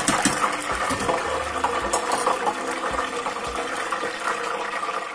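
Dried red peppers deep-frying in hot oil: a steady, dense sizzle full of fine crackles, growing a little quieter near the end once a glass lid is on the pot.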